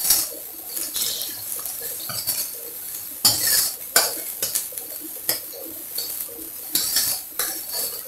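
Steel ladle scraping and knocking against a stainless steel kadai while stirring chopped garlic and onions frying in oil. The scrapes and clinks come irregularly, roughly one every second or so.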